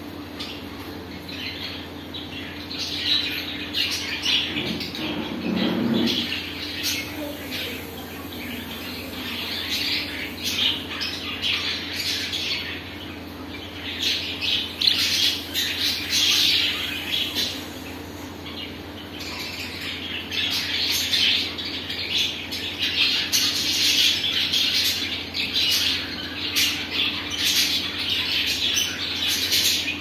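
Budgerigar chattering: rapid, scratchy chirps and warbles in clusters that come and go, over a faint steady hum.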